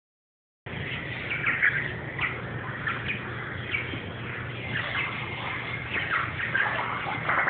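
Short, high chirping animal calls, repeated every half second to a second, over a steady low hum. The sound cuts in abruptly under a second in.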